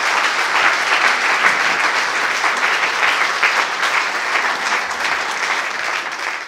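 Audience of a few dozen people applauding steadily in a lecture hall, fading out at the very end.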